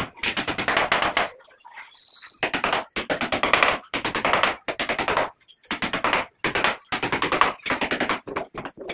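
Hammer driving nails into a plywood door frame, struck in rapid runs of about a dozen blows a second, each run lasting about a second with short pauses between.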